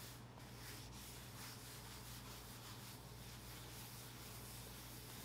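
Faint rubbing of a folded cloth shop-towel pad wiping wet wipe-on gloss finish across a hickory slab in repeated strokes.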